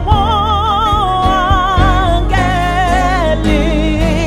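A woman's lead voice sings a gospel worship song over a live band with keyboard, holding long notes with wide vibrato.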